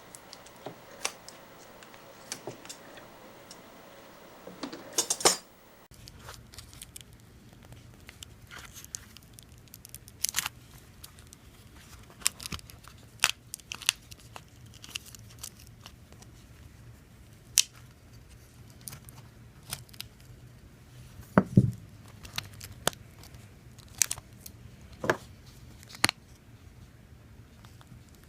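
Scissors trimming a vacuum-formed plastic night guard: scattered sharp snips at irregular intervals, with a short rustling flurry about five seconds in.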